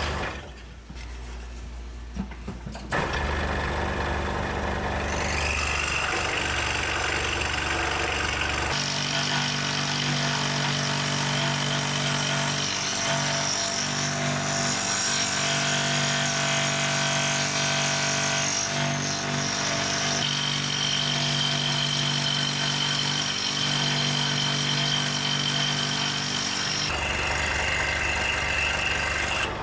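Woodworking power tools running, in several segments that change abruptly every few seconds, each a steady machine hum.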